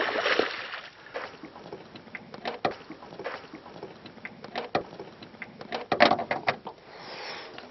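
A hooked traíra (wolf fish) thrashing and leaping at the water's surface, a run of short irregular splashes, the loudest cluster about six seconds in.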